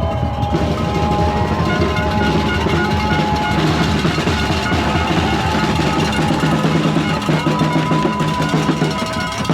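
Music with drums: a steady drum beat under long held notes.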